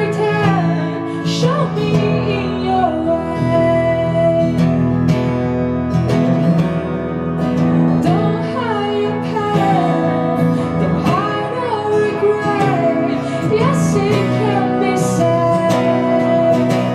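A woman singing a slow ballad over acoustic guitar accompaniment, her voice gliding between long held notes above the sustained chords.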